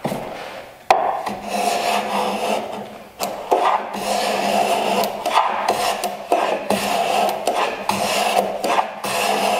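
A small hand tool scraping repeatedly across the end grain of a board clamped in a wooden miter jack, a dry rasping of many short strokes as it cuts a chamfer on the edge so the end grain won't blow out when planed. Sharp knocks about a second in and again around three and a half seconds in.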